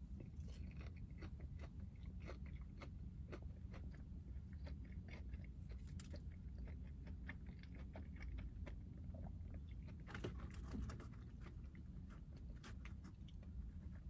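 A person chewing fried mashed potato balls, faint irregular crunching and wet mouth clicks, with a little crunch from the fried outside. A low steady hum sits underneath.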